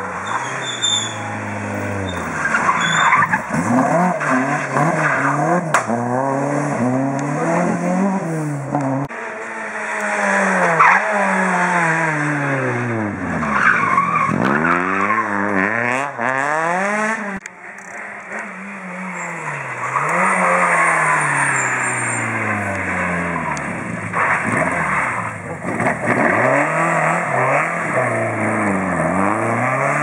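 Rally cars at full throttle passing one after another, three separate passes: an Opel Manta, then a first-generation Renault Clio, then another car. Their engines rev high, drop sharply as the drivers lift and shift, then climb again.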